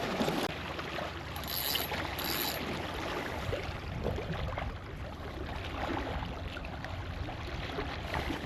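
Steady wash of seawater and wind around a small fishing boat, with no single event standing out.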